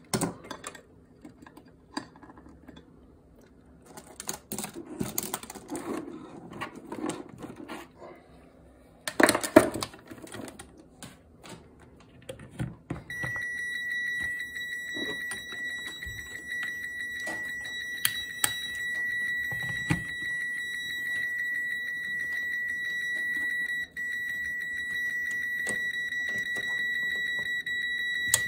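Test leads and probes being handled and clattering on a desk, with a louder clatter about nine seconds in. Then, about halfway through, the Mestek DM100 digital multimeter's buzzer starts a steady, high-pitched continuous beep, breaking off for an instant once. This is its lead-warning alarm, shown as "LEAd" on the display: a test lead is in an input jack that does not match the selected function.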